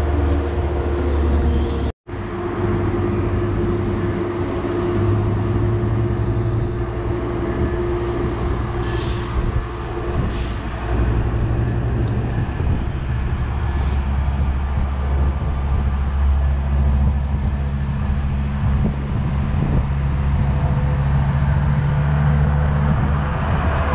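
Diesel locomotive engine running steadily, a deep hum with several steady tones. A short hiss comes about nine seconds in, and the sound drops out for an instant about two seconds in.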